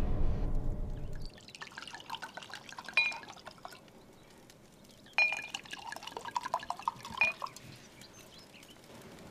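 Wine poured from a bottle into wine glasses, with bright clinks of glass about three, five and seven seconds in and small ticks throughout. Music fades out in the first second.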